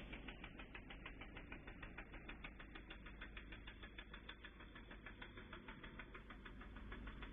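Faint, steady rapid ticking, about eight clicks a second, evenly spaced.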